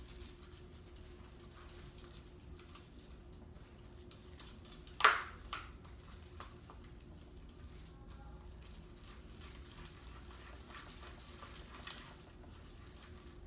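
Faint stirring and squishing of freshly activated red slime with foam beads, worked by hand and stir stick in a plastic bowl as it hardens. One sharp click about five seconds in and a smaller one near the end, over a steady faint hum.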